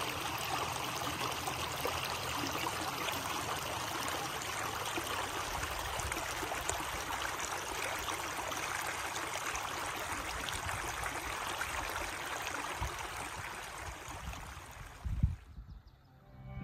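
A shallow creek running and trickling over rocks, a steady even rush that fades out near the end. About 15 seconds in there is one brief low thump.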